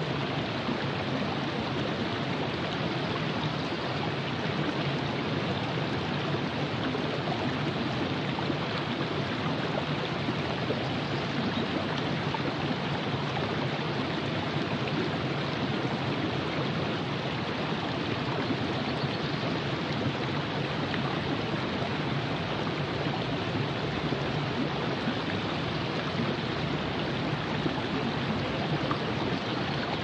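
The Virgin River flowing: a steady, even rush of moving water that does not change.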